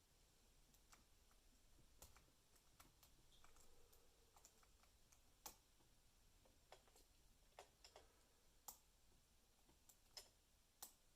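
Faint, irregular clicks of a pick working the pin stack of a Lockwood 334B45 lock under light tension, about a dozen sharp ticks spread unevenly, as the pins catch and fall back. The lock is fitted with spool pins.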